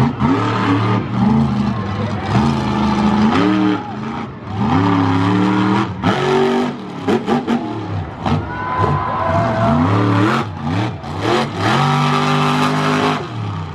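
Monster truck engine revving hard, its pitch climbing and dropping again and again as the throttle is blipped. A few short sharp cracks come about halfway through.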